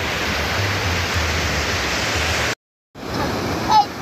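Steady rush of surf breaking on a sandy beach. The sound drops out completely for a moment about two and a half seconds in, then the surf resumes, with a brief high call near the end.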